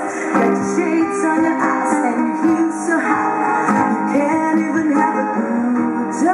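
Live band music: a woman singing over strummed acoustic guitar, with a steady beat.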